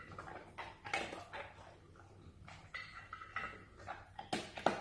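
Bernese mountain dog snuffling and licking at kibble on a plate, with irregular small clicks and scrapes of its muzzle and the food against the plate, and one louder knock near the end.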